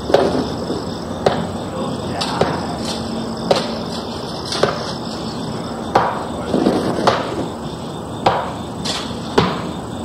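Halloween sound-effects tape playing a run of sharp, hammer-like blows at a steady pace of about one a second, over a constant background hiss.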